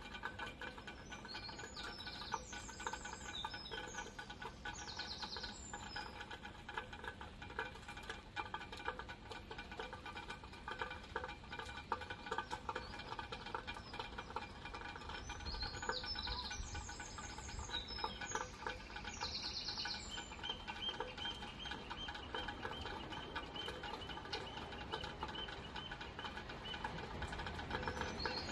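Steady rain pattering and dripping, with a bird twittering twice, a few seconds in and again about halfway through.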